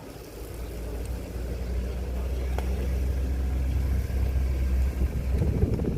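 Propeller engine of a banner tow plane droning as it approaches, growing steadily louder and loudest about four to five seconds in.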